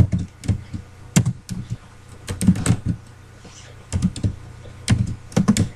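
Typing on a computer keyboard: irregular bursts of keystroke clicks, thinning out for about a second around three seconds in.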